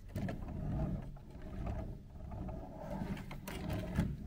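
Low, uneven rumbling handling noise around a plastic LEGO toy truck, with a few light clicks near the end.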